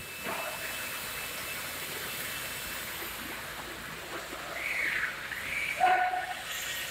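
Rotary-arm pallet stretch-wrapping machine running as its arm circles the load, a steady whirring hiss with a few brief squeals about two-thirds of the way in. There is no noise from underneath the machine.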